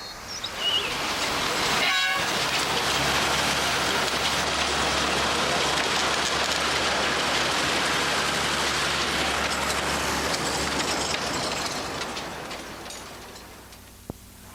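Small-gauge forest railway train running past: a steady rumble that builds over the first couple of seconds, holds, then fades away near the end.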